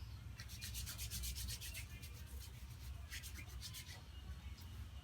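Hands rubbing together in quick strokes while being cleaned, in two spells, one near the start and one about three seconds in.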